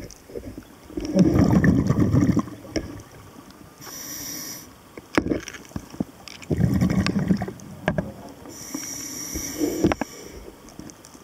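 Scuba diver breathing through a regulator underwater. Two exhales come out as loud bubbling gurgles, each followed a couple of seconds later by a hissing inhale through the demand valve. There are a couple of sharp clicks in between.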